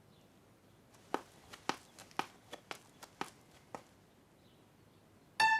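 Light cartoon footsteps, about ten quick, soft steps over nearly three seconds, then a short pitched tone near the end.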